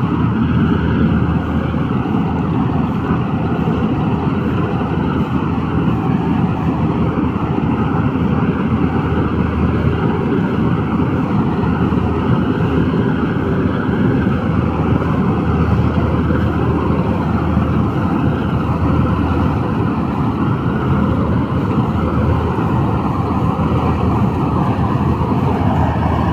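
Preet 987 combine harvester running steadily under load while cutting paddy, its engine and machinery giving a loud, continuous drone with no change in pitch.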